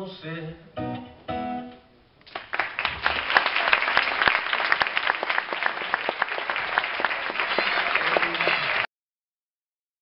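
A few last acoustic guitar notes end the song, then an audience applauds loudly for about six seconds before the sound cuts off suddenly.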